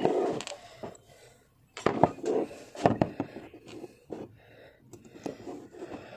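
Small steel parts of a Zigana pistol's slide (firing pin, spring and lock) clicking and scraping as fingers fit them back together, with several sharp clicks around two and three seconds in.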